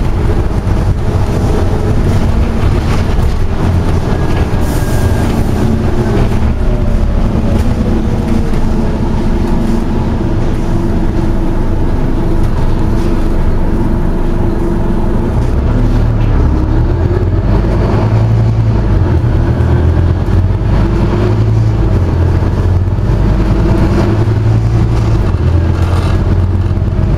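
Inside a Scania OmniCity single-deck bus on the move: a steady engine and road rumble, the engine note rising and falling. The low rumble grows heavier about two-thirds of the way through.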